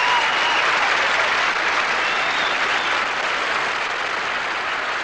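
Large audience applauding, an even sustained clapping that eases off slightly toward the end.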